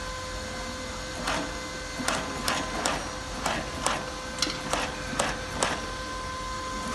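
Shoe-making machine running with a steady electric hum, with about ten sharp clicks at uneven intervals from about a second in until near the end.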